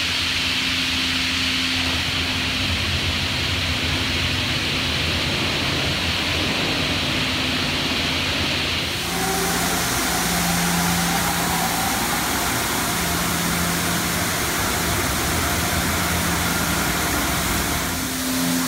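High-pressure spray jets of a Tammermatic T700 rollover car wash hissing onto a vehicle over the steady hum of the wash's pump. The spray sound shifts abruptly about nine seconds in.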